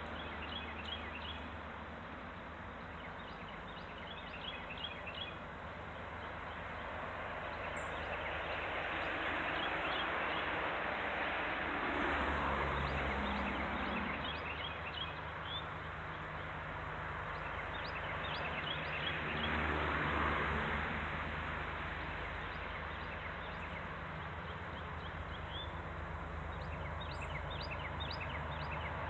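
Diesel locomotives of a freight train rumbling low and steady as they come out through a tunnel, the rumble swelling twice, about twelve and twenty seconds in. Small birds chirp in short runs throughout.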